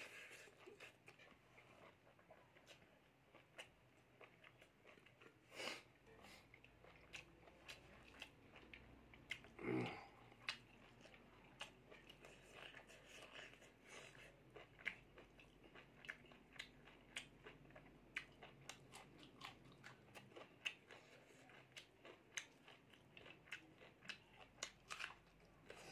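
A person chewing a mouthful of rice and pork, with a steady run of small wet mouth clicks and one louder, lower sound about ten seconds in.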